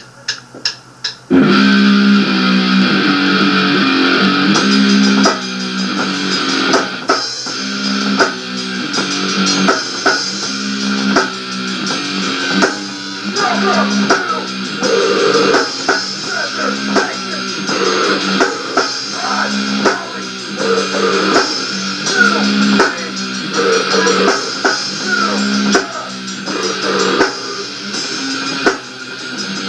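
Rock band playing a song, with guitar and drum kit. Four quick sharp clicks come in the first second before the full band starts.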